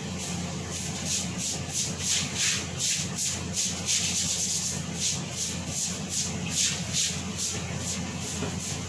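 A run of quick, rough rubbing strokes, about three a second, over a steady low hum.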